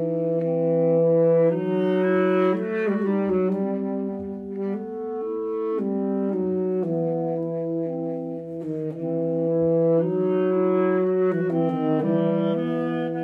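Saxophone and clarinet playing a duet, two lines of held notes moving against each other, the notes changing every second or so.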